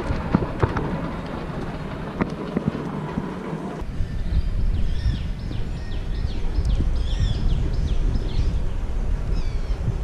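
Outdoor ambience. Scattered clicks and knocks come first; after a cut about four seconds in, wind rumbles on the microphone while small birds chirp repeatedly in quick high calls.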